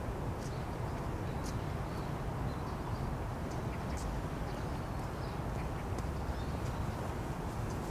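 Outdoor ambience: a steady low rumble with faint, very short high chirps of small birds scattered through it.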